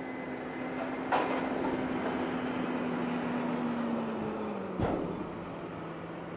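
Tractor engine running steadily; its pitch drops a little about four and a half seconds in as the revs ease. Two sharp knocks come, one about a second in and one near five seconds.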